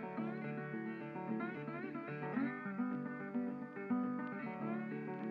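Background music: an acoustic guitar melody with plucked and sliding notes.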